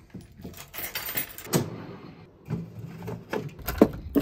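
A ring of keys with a car key fob jangling as it is lifted off a metal wall hook. Then a key works a door's deadbolt lock, with several sharp metallic clicks near the end.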